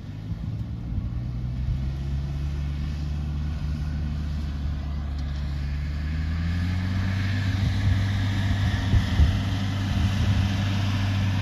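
Car or truck engine running while the vehicle drives; its pitch rises a little about halfway through, with a few light knocks near the end.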